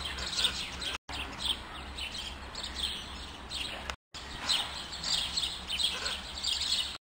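Many small birds chirping, short high chirps crowding over one another without pause. There are two very brief gaps, about one and four seconds in.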